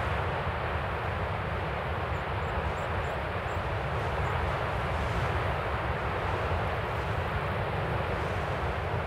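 Strong wind over a rough sea: a steady rushing noise with a deep rumble.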